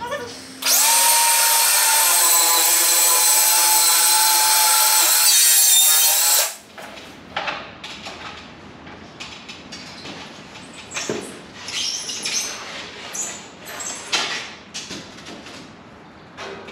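Circular saw spinning up and cutting through a foil-faced rigid foam insulation board for about six seconds, then winding down. Afterwards come scattered rustles and light knocks as the foam panel is handled.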